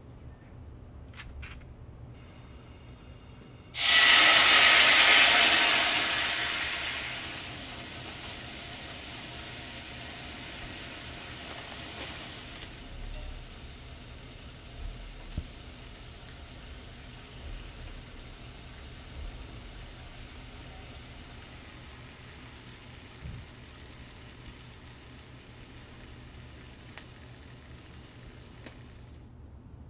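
Lotus root and burdock slices glazing in a frying pan. A sudden loud sizzle starts about four seconds in as something hits the hot pan, dies down over a few seconds, and settles into a steady, quieter sizzle of bubbling sauce with a few light clicks. The sizzle cuts off just before the end.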